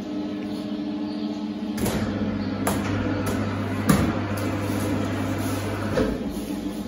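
A steady mechanical hum in a stable under a horse solarium, with a few sharp knocks, the loudest about four seconds in. A deeper rumble joins about two seconds in and stops about six seconds in.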